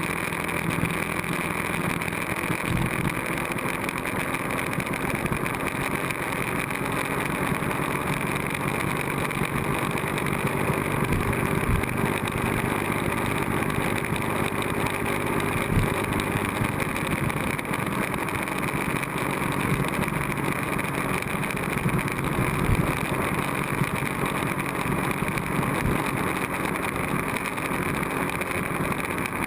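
Sport motorcycle riding at steady road speed, its engine running under a heavy rush of wind noise on the bike-mounted camera's microphone.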